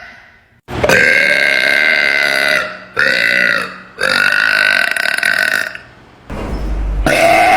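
A young woman belching very loudly: three long burps, the first and last about two seconds each and a shorter one between, then a brief low rumble and another burp starting near the end.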